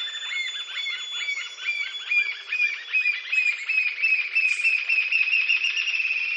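Green-tailed jacamar singing: a long series of high upslurred notes, rising a little in pitch and speeding up into a fast run of notes near the end. A thin steady high whine runs under the first part.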